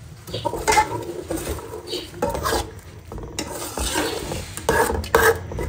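A metal spoon stirring and scraping tomato purée around a pot of hot oil in uneven strokes, while the purée sizzles.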